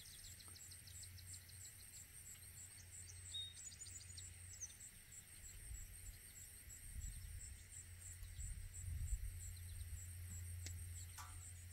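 An insect chirping outdoors in an even, high-pitched pulse, about three chirps a second, over a faint low steady rumble, with a few faint clicks near the end.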